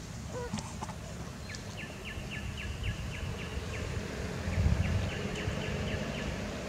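Outdoor ambience: a steady low rumble, and from about a second and a half in a rapid series of short, high, falling chirps, about four a second, with a brief gap partway through. The rumble swells briefly near the middle.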